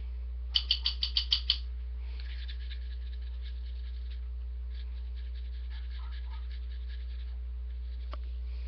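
A quick run of seven sharp taps, about seven a second, starting about half a second in, then fainter rapid ticking for several seconds, over a steady low electrical hum.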